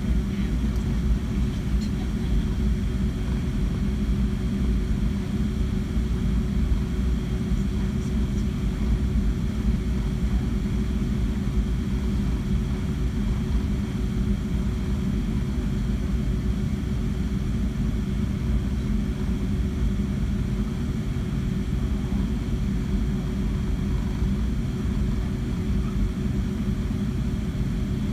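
Cabin noise of a Boeing 757-200 taxiing: a steady low engine rumble with a constant drone.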